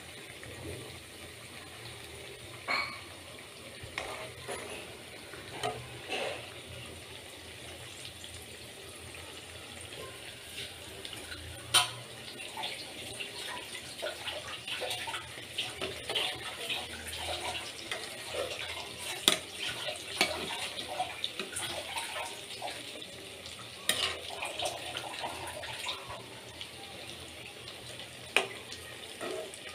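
Masala vadai (chana dal fritters) deep-frying in hot oil in a metal kadai: a steady sizzling crackle, busier in the middle. Now and then comes a sharp clink of a spoon against the pan as the vadai are turned.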